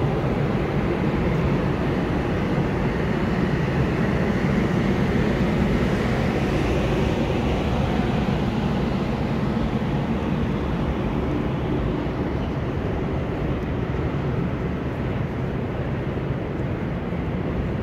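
Passenger train coaches rolling past a platform: a steady rumble of wheels on rails. It grows slightly quieter in the last few seconds.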